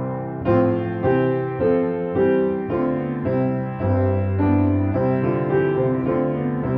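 Piano music: melody notes and chords struck over held low bass notes.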